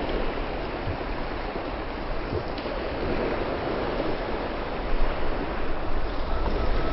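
Small waves breaking and washing onto a sandy beach in a steady hiss. A low wind rumble on the microphone grows stronger near the end.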